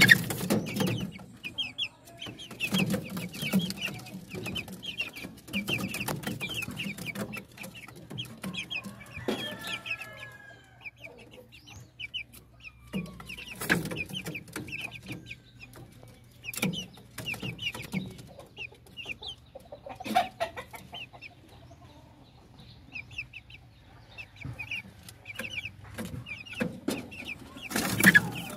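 Young Sweater Roundhead-cross gamefowl chicks peeping in quick, high, repeated chirps, with clucking and sharp bursts of wings flapping against the bamboo slats of their coop, the loudest flurry near the end.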